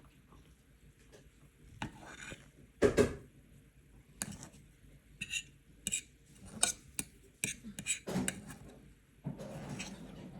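Cutlery clinking and scraping on a plate: a series of light knocks and clicks, one louder clatter about three seconds in, and a longer scrape near the end.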